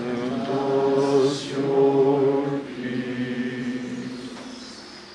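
Voices singing a slow liturgical chant in long held notes. The singing swells twice and fades out about four seconds in.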